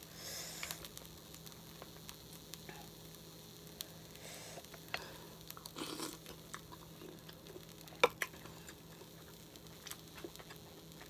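Quiet eating of sauce-dipped green-lipped mussels: a spoon stirring in the sauce, mouth noises as a mussel is eaten from its shell, and a couple of sharp clicks about eight seconds in.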